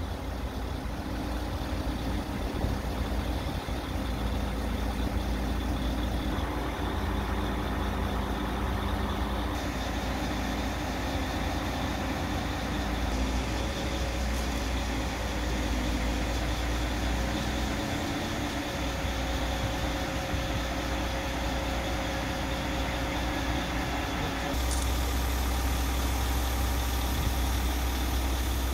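Heavy diesel engine running steadily with a low rumble while a narrowboat hangs in crane slings. The rumble gets louder near the end.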